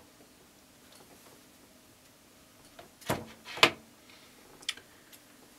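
Two sharp clicks, about half a second apart, as a DSLR camera on a lens adapter is pushed down and seated onto a microscope's photo tube, then a fainter click about a second later.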